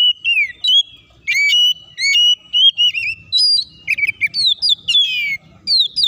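Oriental magpie-robin singing a fast, continuous song of clear whistled notes, many sliding downward, broken up by quick sharp chips.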